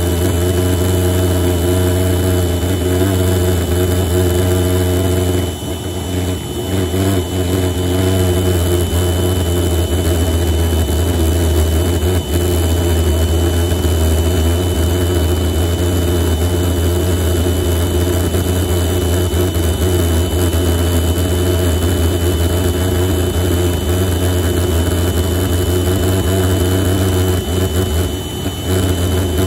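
Homemade propane pulsejet, built from a Coleman propane tank, running with a loud, steady low drone. It falters briefly about six seconds in and again near the end.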